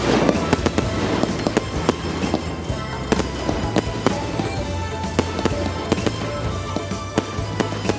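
Handheld tezutsu fireworks spraying sparks: a steady rush studded with many irregular sharp crackling pops. Background music plays underneath.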